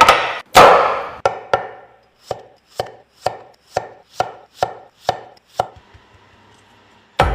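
Knife chopping food on a cutting board: a hard first stroke, then a steady run of strokes about two a second that grow fainter and stop near the end.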